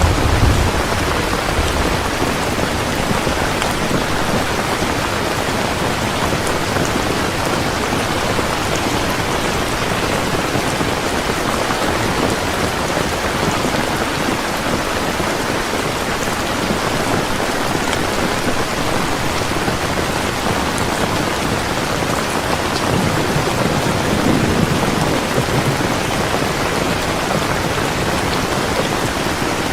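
Steady rain falling, an even hiss, with a low rumble of thunder near the start and again about 23 to 26 seconds in.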